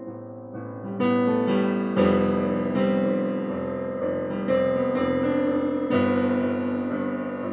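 Slow, gentle instrumental piano music: chords and melody notes struck about once a second, each ringing and fading.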